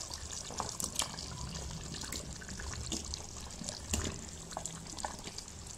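Potato chunks dropping a few at a time into a karahi of simmering chicken curry, each landing with a soft splash or knock, over the steady watery bubbling of the sauce. The sharpest knock comes about four seconds in.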